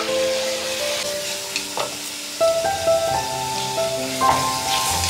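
Ground onion sizzling as it fries in oil in a clay pot, with a wooden spatula stirring and scraping through it, under background music with steady held notes.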